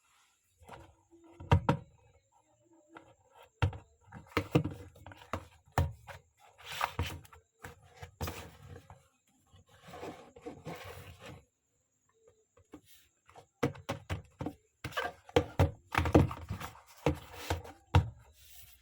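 Handling noises from opening small cardboard toy boxes: irregular knocks, taps and rustling, with a short pause about two thirds of the way through.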